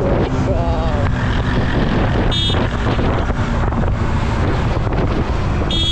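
Heavy wind noise on the camera microphone of a Yamaha R15 V3 at highway speed, with the bike's single-cylinder engine and tyres running under it. A short horn beep comes about two seconds in, and another horn starts just before the end.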